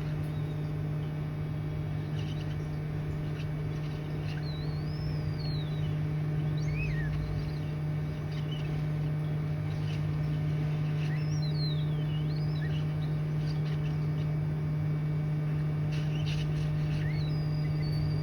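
A steady low hum throughout, with faint short bird chirps scattered over it.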